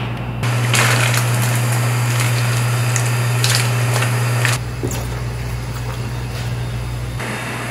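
Kitchen sounds under a steady low hum. For the first few seconds there is a louder steady rush with scrapes as diced tofu is slid from a plastic cutting board into a large pot of boiling soup. About four and a half seconds in this gives way to wet squishing as seasoned kimchi is tossed by hand in rubber gloves.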